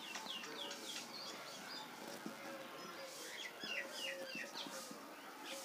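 Faint, short high-pitched chirps that slide downward, coming in small runs about a second in and again from about three to four seconds, over a low steady hiss.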